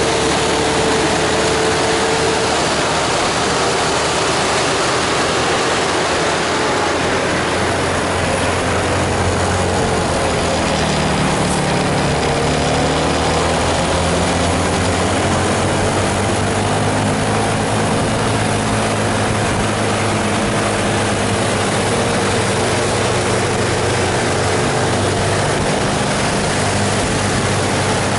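Large bus diesel engine running steadily under a constant hiss of rain and wet road, its low note growing stronger about a third of the way through.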